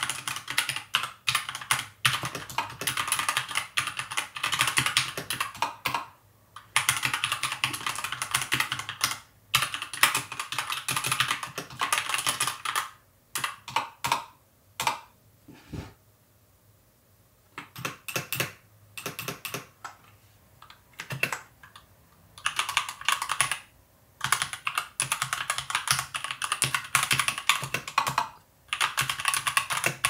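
Typing on a Keychron K2 mechanical keyboard with red linear switches and an aluminium frame: quick runs of key clatter broken by short pauses. About halfway through comes a longer lull in which only a few single keys are struck.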